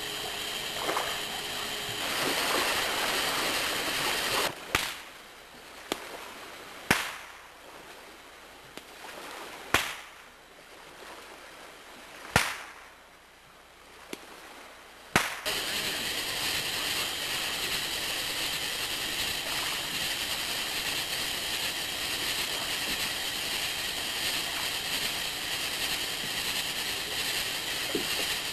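Fireworks going off: five sharp bangs two to three seconds apart, each trailing off in an echo. From about halfway there is a steady hiss of a ground fountain firework spraying sparks.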